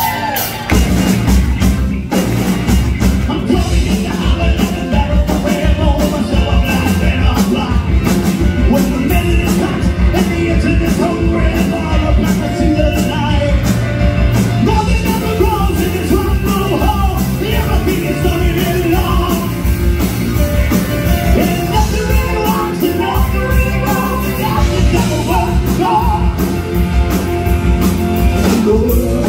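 Live rock band playing loudly: drums keeping a steady beat under bass, electric guitar and keyboard.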